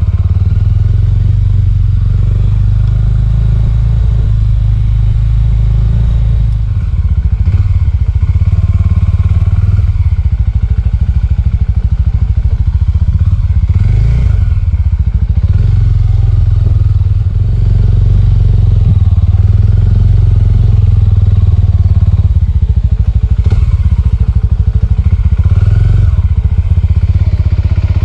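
Small Suzuki motorcycle's engine running at low speed on a rutted dirt track, with the engine note dipping and picking up a few times. Several short knocks and rattles come through as the bike goes over bumps.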